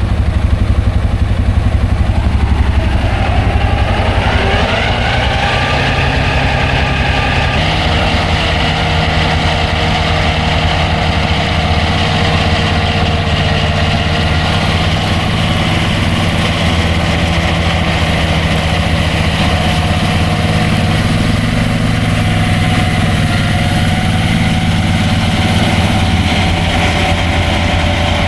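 Farm tractor engine running steadily while working a disc mower. Its pitch climbs from about three seconds in to about seven seconds in as it speeds up, then holds steady.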